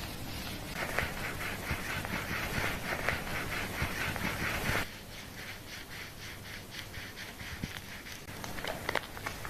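Hands scrubbing a lathered scalp during a hair wash: quick rasping strokes, about five a second. About five seconds in the strokes suddenly get much quieter and carry on faintly, with a few sharp clicks near the end.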